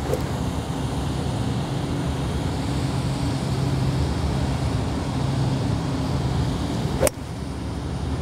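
A single sharp crack of a golf iron striking a ball off a hitting mat about seven seconds in, over a steady low background hum.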